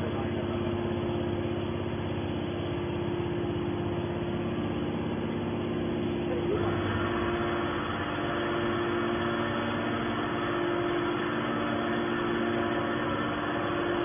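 Hydraulic scrap metal baler's power unit running with a steady hum; about six and a half seconds in, a higher whine joins it.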